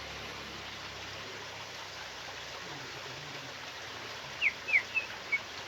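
Kutilang emas bulbul giving four short, sharp call notes in quick succession, each sliding down in pitch, over a steady background hiss.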